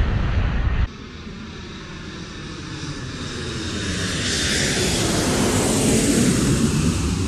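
A loud rumble cuts off about a second in, then an airplane approaches, growing steadily louder, and passes over with its pitch falling.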